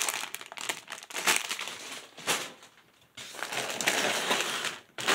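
Sealed plastic bags of Lego bricks crinkling and rustling as they are handled and pulled from the box, in irregular bursts with a short lull a little before three seconds in.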